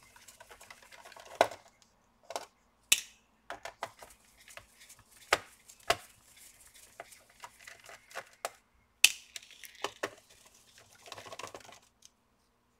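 Small screwdriver taking screws out of a laptop's plastic bottom case, with scattered sharp clicks and clinks as the loose screws are lifted out and dropped into a plastic parts box.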